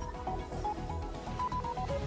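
News programme's closing theme music: a melody of short stepping notes over a pulsing bass.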